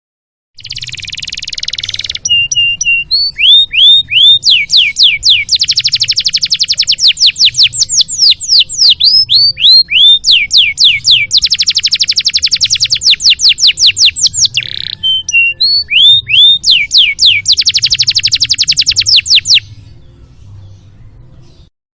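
Canary singing a long, loud song of fast trills and repeated down-slurred whistles, after a brief hiss at the start; the song stops about 20 seconds in and the sound cuts off shortly after.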